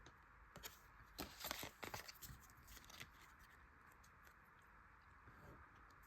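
Near silence, broken by a few faint rustles and ticks of Pokémon trading cards and a torn booster-pack wrapper being handled, mostly in the first half.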